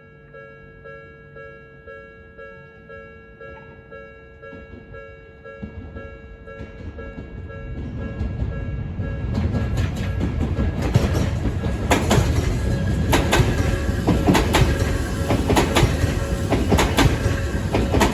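Level-crossing warning bell ringing in a steady repeating beat. From about eight seconds in, a train approaches and passes over the crossing, growing loud, with its wheels clacking rapidly over the rail joints.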